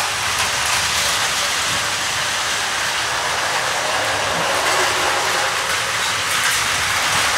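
Plarail toy train running on its plastic track: a steady mechanical whirring and rattling.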